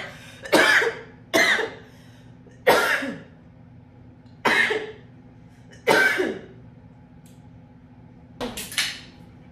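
A woman coughing in a drawn-out fit: about seven separate hard coughs, irregularly spaced a second or more apart, with two close together near the end.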